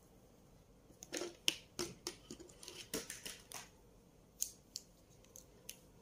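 Light clicks and scrapes of objects being handled, a quick irregular cluster in the first half followed by a few scattered single clicks.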